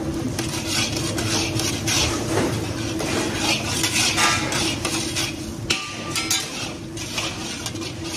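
A long-handled metal spatula scraping and clinking against a large iron kadai, stirring dal, mustard seeds and dried red chillies as they fry. Hot oil sizzles underneath: the tempering stage of the dish. Briefly, about six seconds in, the metal rings.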